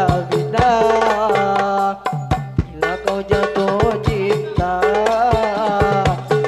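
Hadrah music: hand-struck frame drums (rebana) keep a steady rhythm under a man's amplified voice singing long, ornamented notes. The sung line breaks off briefly about two seconds in while the drums carry on.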